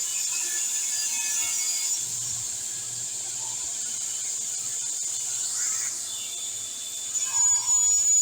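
Sliding table saw running with a steady high whine over a low hum, growing louder near the end.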